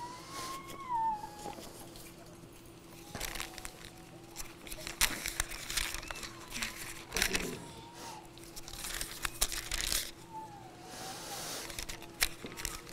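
Thin Bible pages rustling in short bursts as they are leafed through, several times over. Faint high wavering calls sound now and then in the background.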